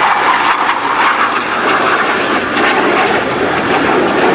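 Blue Angels F/A-18 Hornet jet flying past, the steady loud roar of its twin General Electric F404 turbofan engines.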